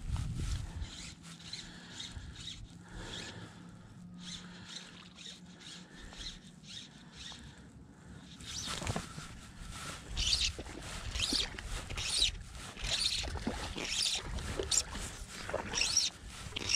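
Scratchy rustling and handling noise of the angler's jacket and fly line close to the camera, with faint water sounds around the boat; the scratching gets busier about halfway through.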